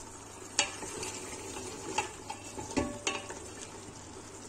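Beef shank and yogurt masala frying and sizzling in a pressure cooker while being stirred with a spatula, which knocks sharply against the pot about four times.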